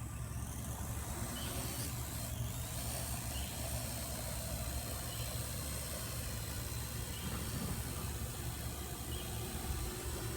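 Small recreational quadcopter drone's propellers buzzing as it lifts off and flies, a faint wavering hum over a steady low rumble of wind on the microphone.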